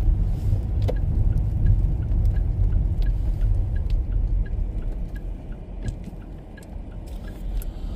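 Low road and engine rumble inside a car cabin while driving, with a faint regular ticking about three times a second.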